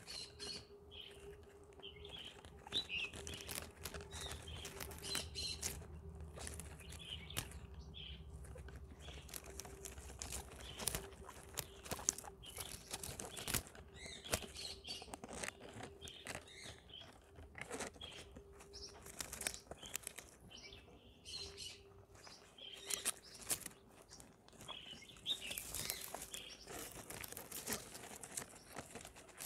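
Guinea pigs chewing plants and flowers, a steady run of crisp crunches, clicks and rustles, with short high chirps here and there and a faint steady hum underneath.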